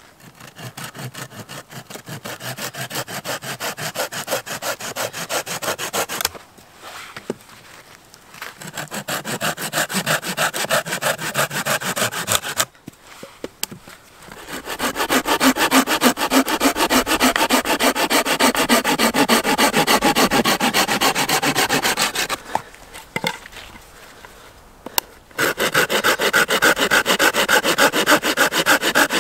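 Hand pruning saw cutting through a dead, lichen-covered branch with quick back-and-forth strokes. The sawing stops briefly three times, then starts again.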